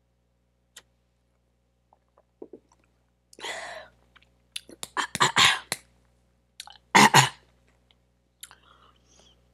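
Several hard, noisy breaths blown out through the mouth, the loudest about five and seven seconds in, from a person whose mouth is burning from an extremely hot gumball.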